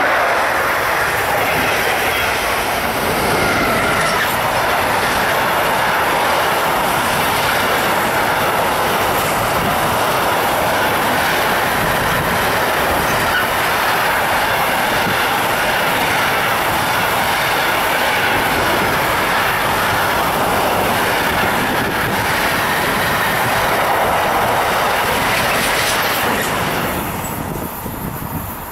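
A long train passing close by, its steel wheels running steadily on the rails, until the noise drops away near the end as the last cars go by.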